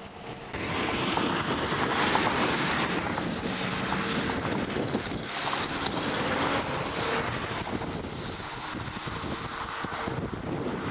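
Strong wind rushing and buffeting the microphone, starting abruptly about half a second in and easing a little near the end.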